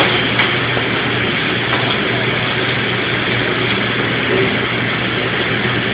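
Steady rushing background noise with a constant low hum, and a couple of faint short knocks early on.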